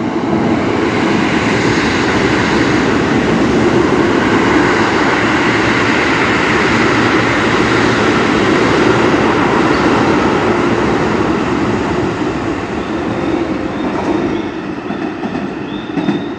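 Keio Line commuter train running past, a loud steady rush of wheels on rail that eases slightly near the end.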